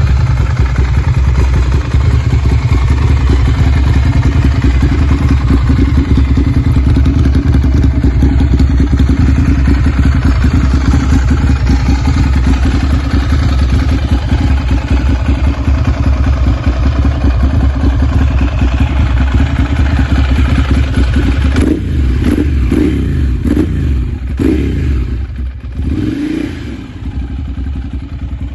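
Ducati Monster V-twin engine running loud and steady at idle on a cold start, then revved in several quick throttle blips from about 22 seconds in, each rising and falling back.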